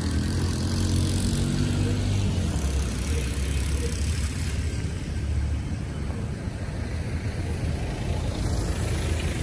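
Road traffic: a steady low rumble of vehicle engines as a dump truck and a minivan go by, with an engine's hum clearest in the first couple of seconds.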